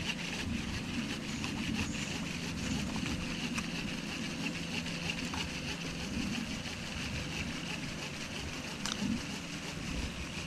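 Boat motor running steadily, a low constant hum, under a steady high-pitched drone, with a few faint clicks.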